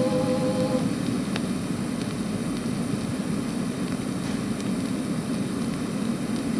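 An organ chord holds for under a second and stops, leaving the steady hiss and low rumble of an old recording's background noise, with a few faint clicks.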